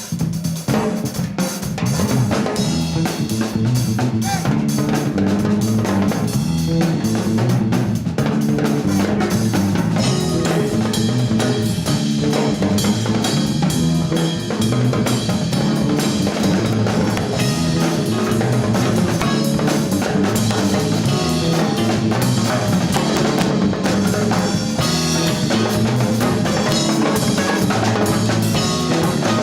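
Latin fusion band playing, with drum kit and percussion driving a steady groove over a moving low line.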